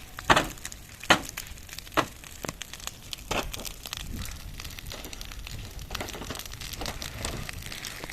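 Dry grass and brush crackling and snapping in a forest fire, with several sharp cracks in the first three seconds or so, over a steady crackle.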